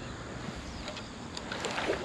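River water splashing and lapping, with a few irregular small splashes, the loudest near the end.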